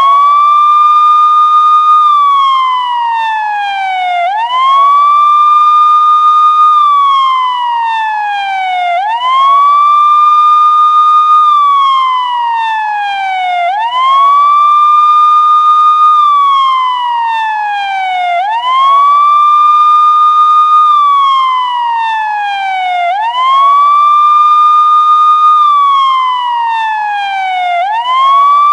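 Police siren wailing: its pitch rises quickly, holds high for a moment, then slides slowly down, over and over in a slow wail cycle of about five seconds.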